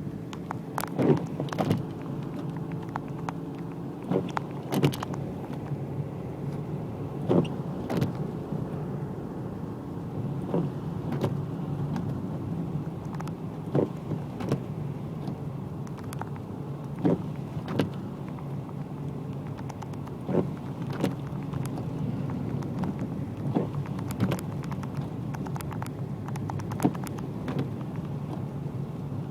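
Toyota Corolla driving through heavy snow, heard from inside the car: a steady engine and road hum, with short knocks, mostly in pairs, about every three seconds.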